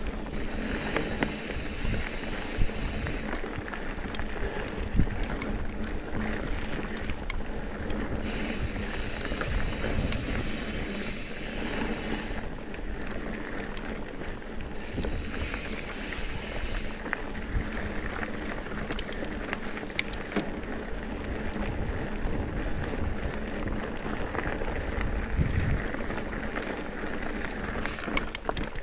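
Trek Top Fuel mountain bike ridden along rocky dirt singletrack, heard from a GoPro: tyres rolling over the trail and the bike rattling, with sharp knocks over bumps. A rushing wind hiss on the microphone comes and goes.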